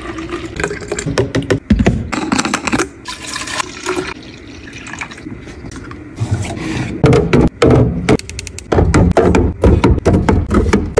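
Liquid being poured into a ribbed glass carafe, a steady rushing fill. From about seven seconds in comes a run of sharp knocks and clunks as a lid goes on and plastic bottles are set down in a fridge bin.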